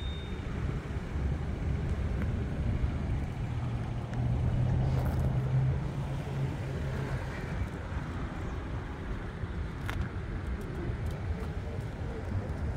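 A car engine running with a low, steady rumble that swells for a few seconds in the middle.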